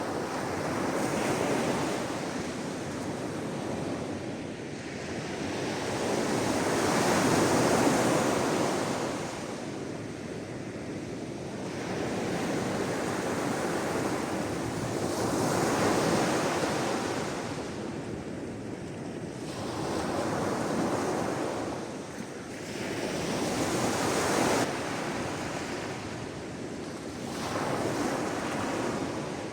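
Sea waves breaking and washing in, each one swelling and fading away every few seconds, the loudest about eight seconds in.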